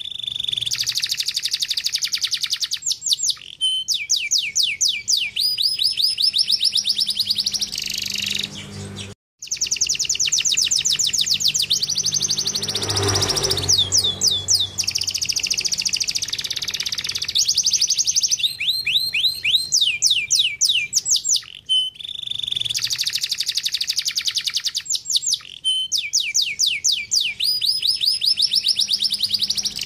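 Domestic canary singing a long song of rapid trills, each made of quickly repeated falling notes, changing from one trill type to the next. The song drops out completely for a moment about 9 seconds in, then resumes.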